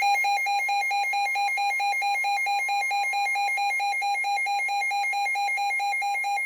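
Weather alert radio's alarm: an electronic beep switching rapidly back and forth between two pitches, with a faint steady tone beneath, sounding for a NOAA Weather Radio warning.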